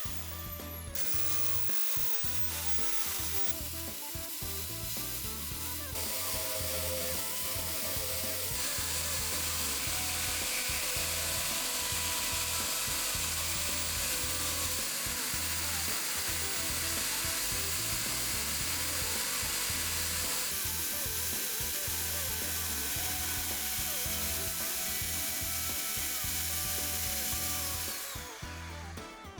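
Workshop tool work in several short takes that change abruptly: mostly a steady, noisy power-tool running, with mechanical clicking.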